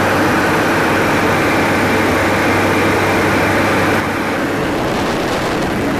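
Cabin noise of a light propeller aircraft in flight: a steady engine and propeller drone with a low hum under loud rushing air, dipping slightly about four seconds in.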